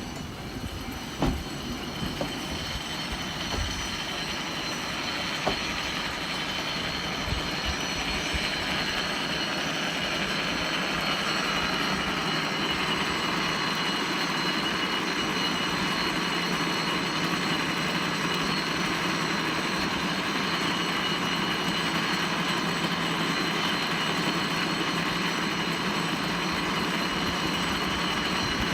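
Ikoma Cable Line funicular car running on its rails. The sound grows louder over roughly the first ten seconds, then holds steady.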